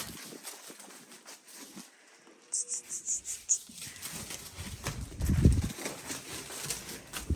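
Calves stepping and shuffling in a barn pen, hooves clicking in a quick run. A dull low thump comes about five seconds in and is the loudest sound.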